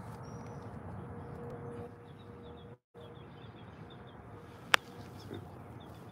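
Small birds chirping in short, evenly repeated notes over a faint steady hum and low outdoor rumble. The sound cuts out for a moment near the middle, and a single sharp click, the loudest thing here, comes about three-quarters of the way through.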